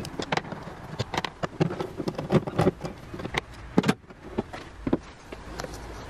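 Irregular sharp clicks and knocks from screws being undone on a VW Up!'s plastic air filter housing and its cover being handled, with the loudest knock a little before four seconds in.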